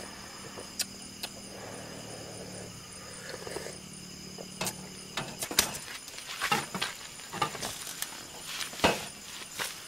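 Steady chirring of night insects, with clinks and clatter of metal mugs and a camping cook pot being handled. There are a couple of sharp clicks early on, and the clatter gets busier from about halfway through.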